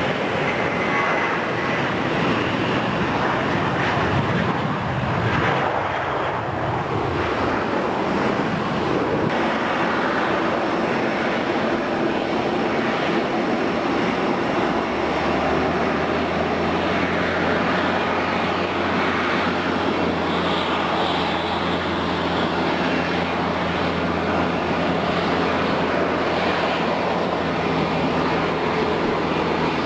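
Jet engines of a Bombardier CS100 airliner, its Pratt & Whitney PW1500G geared turbofans, making a steady, loud rushing noise. About halfway through, a low steady hum with a few held tones joins in.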